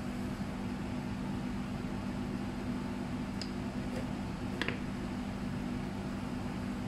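Steady low hum with a hiss from the stove as a pot of salted water heats and steams toward the boil, with two faint light clicks a few seconds in.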